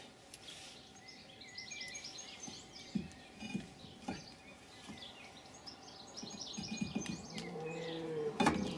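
Small birds chirping and twittering in the background, with a few sharp metallic clicks from the brake pad holder and its parts being handled and fitted back onto the rear brake, the loudest near the end. A low hum rises and falls briefly near the end.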